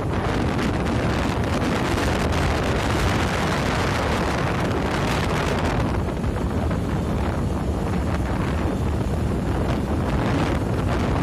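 Steady wind noise buffeting the microphone of a moving vehicle, mixed with its road and engine noise.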